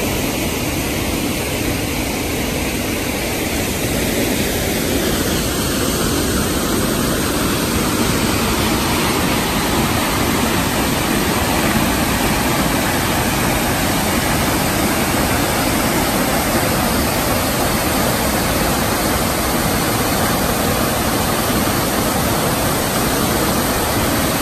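A large waterfall pouring over a rock ledge: a loud, steady, even rush of falling water.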